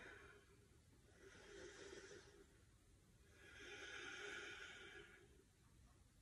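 A woman breathing audibly and slowly, two faint breaths: a shorter one about a second in and a longer one from about three to five seconds in.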